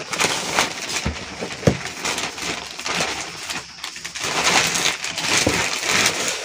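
Plastic courier mailer bag rustling and crinkling as a cardboard box is handled on it, with a few soft knocks of the box.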